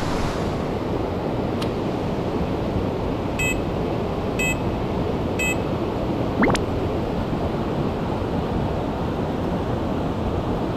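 Steady rushing water of a mountain stream flowing over rocks and a small cascade. Three short electronic beeps a second apart, about three to five seconds in, then a quick sweep up and down in pitch about six seconds in.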